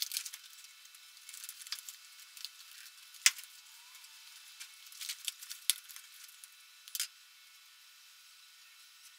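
Hands handling a paper template against the rusted sheet-metal speaker tray: faint crinkling and scattered small clicks, with one sharp tap about three seconds in.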